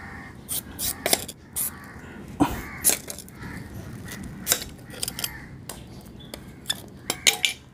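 A heavy chopping knife scraping and chopping pieces of coconut frond stalk (madal) into strips on a concrete floor. It makes an irregular run of sharp clicks and knocks, the loudest about two and a half seconds in and again near the end.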